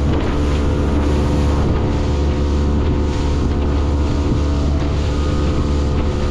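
Boat engine running steadily while underway, with wind buffeting the microphone.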